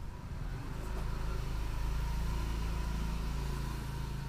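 A steady low mechanical hum, like an engine or motor running, swelling a little through the middle, with a faint high steady tone above it.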